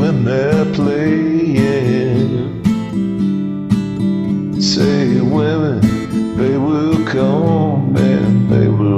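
Strummed acoustic guitar with a voice singing over it.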